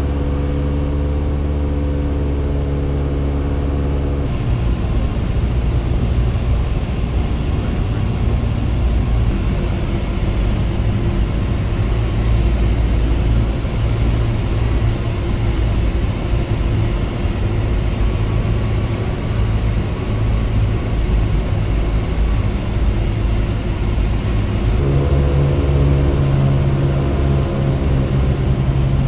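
A single-engine light aircraft's piston engine and propeller drone steadily, heard from inside the cockpit. The sound turns rougher and noisier about four seconds in, then clearer and more tonal again near the end.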